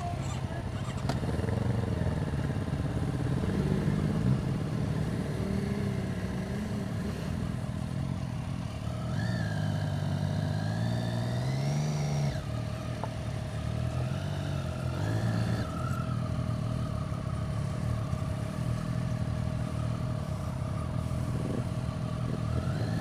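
Several sport motorcycles running at low speed and idling, their engines rising and falling in pitch as the throttles are blipped, with two clearer revs about halfway through.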